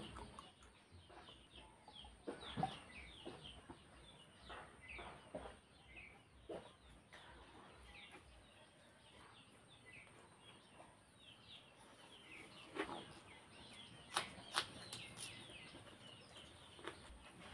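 Faint birds chirping in the background, many short falling chirps in quick succession, with a few sharper smacks and clicks of chewing and eating by hand, the loudest about two and a half seconds in and again near the end.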